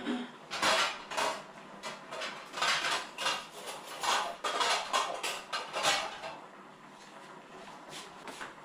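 Cutlery and dishes clinking and scraping at a meal: a quick, irregular run of small knocks and clatters, dying down to quieter sounds about six seconds in.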